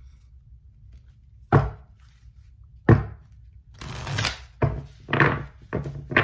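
Oracle card deck being shuffled by hand: several sharp slaps and knocks of the cards about a second apart, with a brief rasping rustle of cards sliding about four seconds in.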